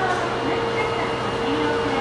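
Subway station platform ambience: a steady machine hum with a constant tone, with faint voices in the background.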